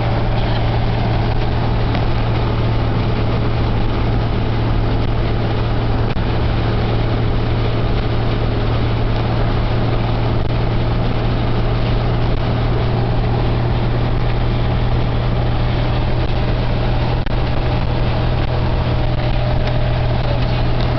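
1931 Dodge Brothers car cruising at steady highway speed, heard from inside the cabin. A constant low engine drone sits under even road and wind noise.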